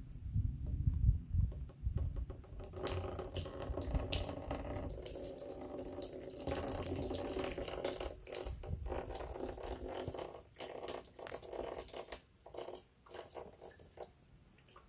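Water pattering on a corrugated steel roof and running off through a sheet-metal flashing gutter, which is being tested, starting about two and a half seconds in and dying away near the end. Wind buffets the microphone at the start.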